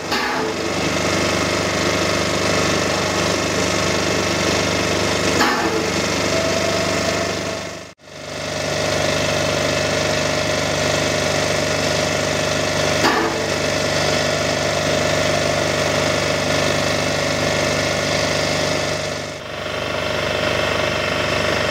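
1941 Hv3 steam locomotive, wood-fired, running close by with a steady mechanical hiss and chuff mixed with a steady hum. The sound cuts out briefly about eight seconds in.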